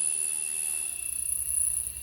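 Pulsed laser cleaner ablating the surface of an aircraft part, giving a steady high-pitched whine and buzz, with a low rapid pulsing coming in about a second in.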